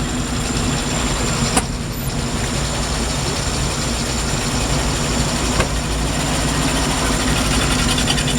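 Large classic car engine idling steadily with a low, even rumble. Two brief sharp clicks sound over it, about one and a half seconds in and again near the middle.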